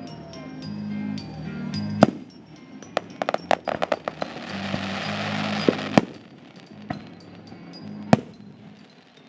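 Fireworks shells bursting at a display, with music playing underneath. There are sharp bangs about two, six and eight seconds in, a rapid string of crackling reports around three to four seconds in, then a sizzling crackle for about two seconds.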